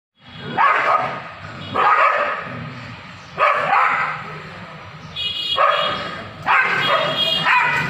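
A pack of free-roaming street dogs barking at one another in an aggressive standoff, with loud outbursts coming every second or two and a lower rumbling noise between them.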